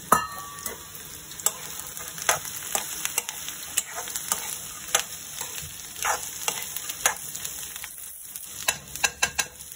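Sprouted black chickpeas and onions sizzling in hot oil in a metal kadhai, stirred with a metal spatula that scrapes and knocks against the pan over and over.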